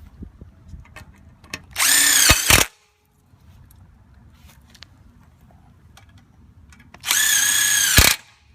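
Power drill driving small 1/2-inch screws to fasten the handrail to the post. There are two short runs of about a second each, the second some five seconds after the first, and the motor pitch rises as each run starts. Light clicks and handling noise come between the runs.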